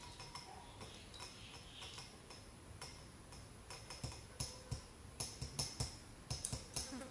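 Baby monkey sucking at a milk bottle's teat: soft irregular clicks, sparse at first, then louder and more frequent from about halfway in, several a second.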